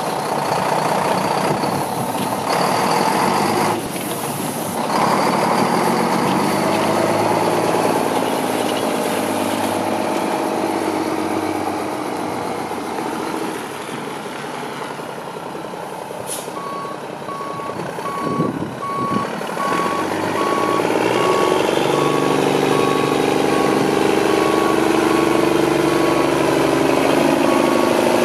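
Mack CH613 tractor's diesel engine running as the truck moves off, then backing up with its reverse alarm beeping evenly from a little past halfway. A brief sharp hiss comes just before the beeping starts, and the engine note grows stronger while it reverses.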